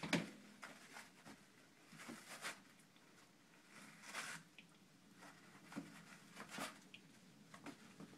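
Toilet paper rustling and tearing as a Siamese kitten claws and bites at it, in faint scattered bursts, the loudest right at the start.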